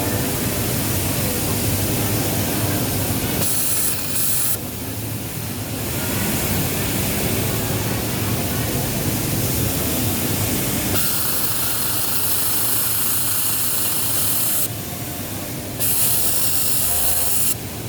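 Pegasus M952 industrial overlock sewing machine running, a steady hum with a high hiss that starts and stops several times.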